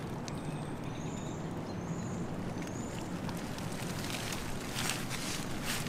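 Rain pattering steadily on the Dyneema canopy of a Tarptent Aeon Li, heard from inside the tent, with a few sharper rustles near the end.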